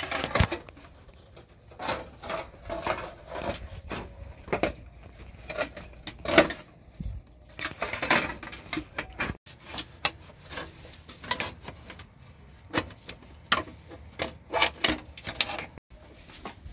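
A run of irregular clicks and knocks of uneven loudness, with faint rustling between them.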